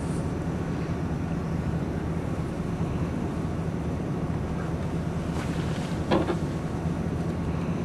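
Steady low rumble of wind buffeting the microphone, with a brief knock about six seconds in.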